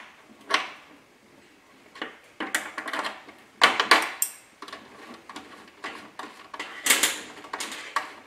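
Irregular metallic clicks and clinks of small hand tools, a hex key and spanner on a cap head screw and nuts, as a self-tapping brass threaded insert is wound into a 3D-printed plastic boss and the screw is backed out. The loudest clatters come about four seconds in and again about seven seconds in.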